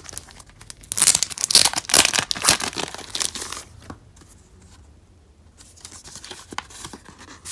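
Plastic wrapping crinkling and tearing for about three seconds, starting a second in, as the DVD package is opened, followed by fainter rustles and clicks of handling.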